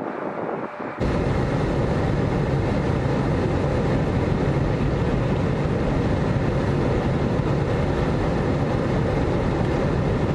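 Strong wind rushing over the microphone, a loud steady rushing with a deep rumble that starts abruptly about a second in.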